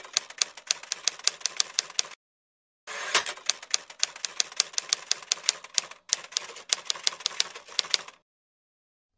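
Typewriter keys clacking rapidly, about five or six strokes a second, in two runs separated by a short pause. It is the typing effect for text typed out letter by letter.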